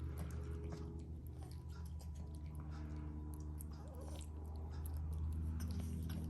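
Kittens chewing food: a run of many small, quick, irregular clicks of eating.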